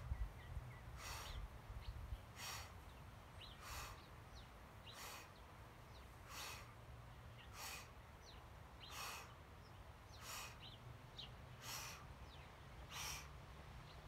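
Faint outdoor wildlife: a short call repeating evenly about every second and a half, with brief scattered bird chirps between the calls, over a steady low rumble.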